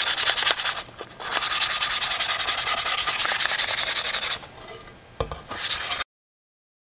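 Fine sandpaper (about 200–350 grit) rubbed by hand across the cut edge of a piece of mirror glass in quick, scratchy back-and-forth strokes, smoothing off the sharp edge. The sanding pauses briefly twice, with a light knock during the second pause, and the sound cuts off suddenly about six seconds in.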